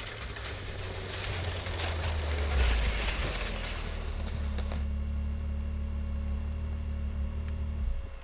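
Snowmobile engine running as the machine drives up towing a loaded sled, with the hiss of its travel over snow. About halfway through the hiss fades and the engine runs steadily at rest, then cuts off abruptly just before the end.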